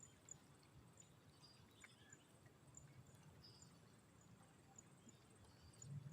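Near silence: faint outdoor ambience with a low rumble and a faint high tick repeating about twice a second.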